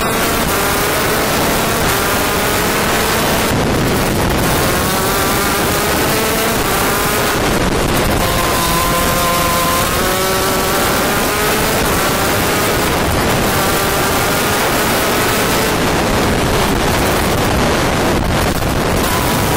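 An 80cc two-stroke shifter kart engine heard on board at racing speed. It rises in pitch again and again as it revs up through the gears, dropping briefly between rises, with wind noise on the microphone.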